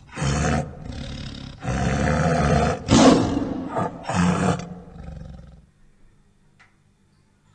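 Tiger roaring and growling, a run of several rough calls with the loudest about three seconds in, then trailing off to quiet.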